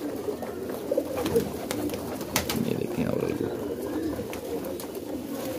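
A flock of domestic highflyer pigeons cooing together, a steady low jumble of overlapping coos, with a few sharp clicks.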